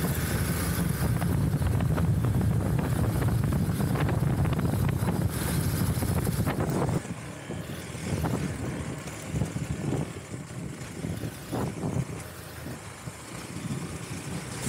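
Hero Xpulse 200 4V single-cylinder motorcycle being ridden, with its engine and wind buffeting on the microphone in a steady low rumble. About seven seconds in the rumble drops quieter, and scattered knocks and rattles from the rough, broken road follow.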